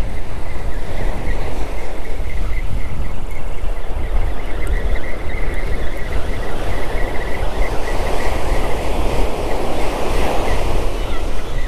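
Wind buffeting the microphone over the sound of surf breaking on the beach, with a wave washing in more loudly near the end.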